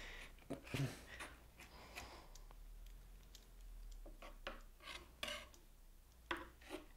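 Faint knife taps and scrapes on a cutting board as vegetables are chopped, coming at irregular intervals.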